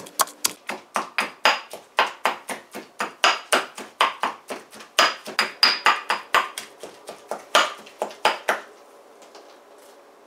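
Stone pestle pounding garlic and peppers in a stone mortar: quick, sharp knocks, about three or four a second, that stop about eight and a half seconds in.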